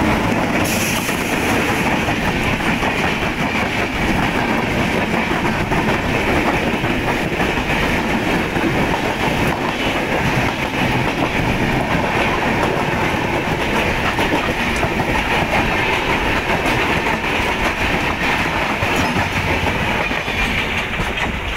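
Duronto Express, hauled by an electric locomotive, passing at high speed on the adjacent track: a steady loud rush of coaches and wheels with clickety-clack over the rail joints, heard close up from the open door of another train.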